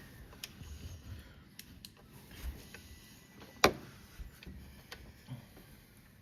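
Scattered small clicks and taps of parts, screws and tools being handled while assembling a 3D printer, with one sharper click about three and a half seconds in.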